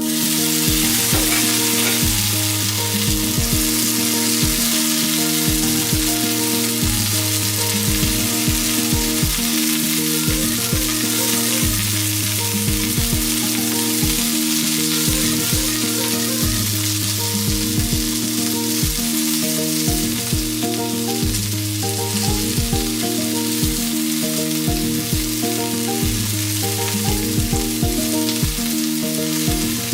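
Food frying in a cast-iron skillet, a steady sizzle, under background music with a regular beat.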